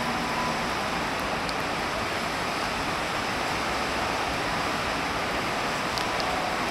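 Rain falling steadily on wet pavement, an even hiss with no letup.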